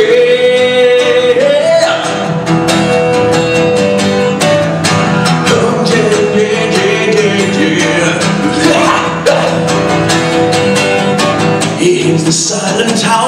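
Acoustic guitar strummed in a steady driving rhythm, with a man singing long held notes over it between lines.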